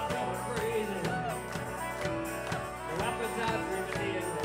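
Live country-folk band playing: a man singing over strummed acoustic guitar, with a drum beat about twice a second.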